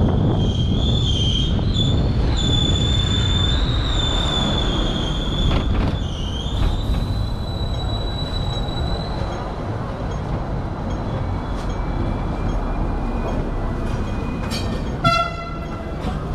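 Hong Kong tram's steel wheels squealing on the rails: a high, wavering squeal over the tram's running rumble, fading out about nine seconds in. About fifteen seconds in comes one sharp ring of the tram's bell, the 'ding ding'.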